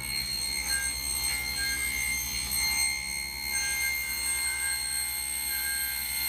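Table saw running with a steady high whine while its blade is raised up through the underside of a plywood panel to plunge-cut a slot.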